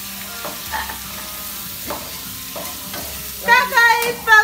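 Food sizzling in a frying pan as it is stirred. About three and a half seconds in, a loud high voice, held like singing, comes in over it.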